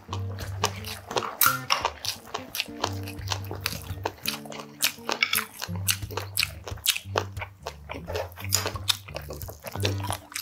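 Close-miked eating of grilled sailfin sandfish: many sharp, crunchy bites and chewing. Background music with low held bass notes plays underneath.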